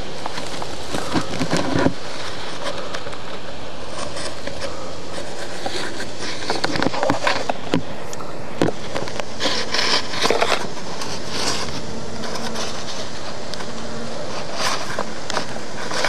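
Honeybee colony buzzing in an opened hive, with scattered short knocks and rustles from handling.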